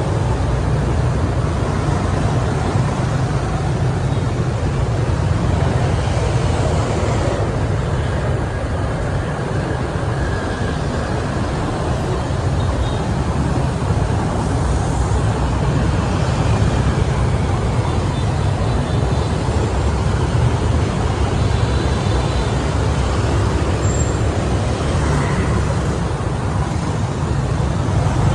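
Steady city street traffic: motorbikes and cars running and passing close by, over a constant low rumble.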